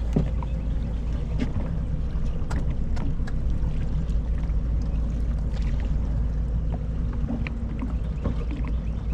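Steady low rumble of a small boat on the water, with scattered light clicks and knocks.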